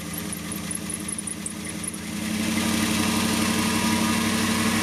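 S10 Blazer's V8 with a rebuilt Quadrajet four-barrel carburetor, running just after a cold start. It sits at a high fast idle that still needs tuning, and grows louder about two seconds in.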